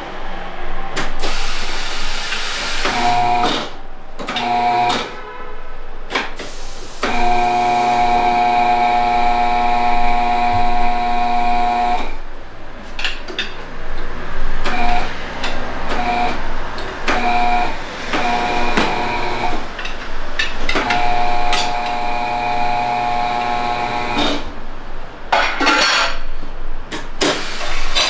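Tyre bead squealing against an alloy rim as it is forced on with steel tyre irons on a tyre changer. There are long steady squeals of several seconds and shorter squeaks, with sharp knocks and clanks of the irons between them.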